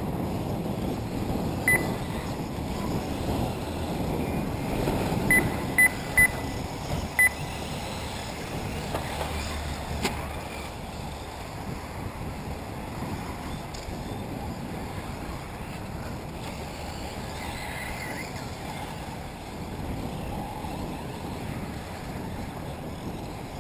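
Wind buffeting the microphone over the faint running of electric 1/8-scale off-road RC buggies on the track. Short high beeps sound five times in the first eight seconds.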